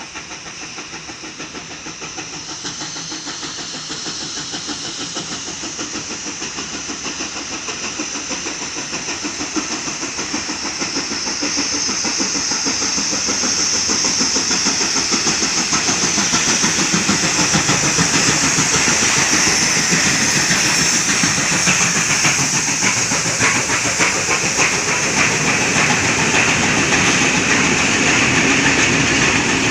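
Steam locomotive hauling a train, its exhaust chuffing in quick beats with steam hissing, growing louder over the first dozen seconds as it approaches and then passing close with the wheels clattering over the rail joints.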